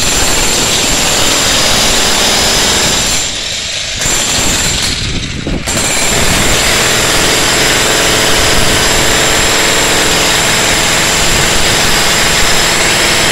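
Ryu RDH 50 electric demolition hammer running under load, its chisel hammering into a reinforced concrete floor slab. It eases off briefly twice, around three and five seconds in, then runs on.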